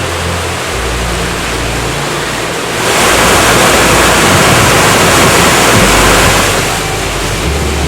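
Rushing water noise that swells much louder for about four seconds in the middle, over a low steady hum.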